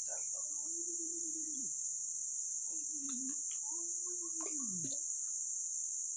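Steady, high-pitched chorus of insects such as crickets or cicadas, with a few faint, low, falling tonal calls underneath.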